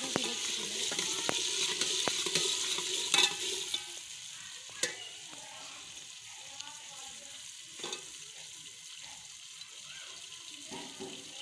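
Vegetable curry sizzling in an aluminium pot over a wood fire, a metal ladle stirring it and clinking against the pot several times. The sizzle drops off after about four seconds, leaving a quieter hiss and a couple more clinks.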